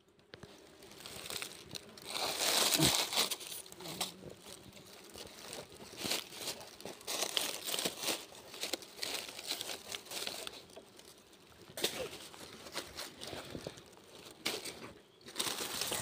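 Dry leaf litter and cloth rustling and crinkling as they are handled, in irregular bursts with small crackles. It is loudest a couple of seconds in.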